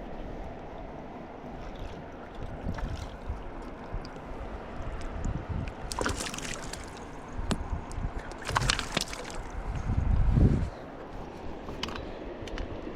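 River water flowing steadily, with two brief splashy sounds partway through and low rumbling, loudest about ten seconds in, from wind on the microphone.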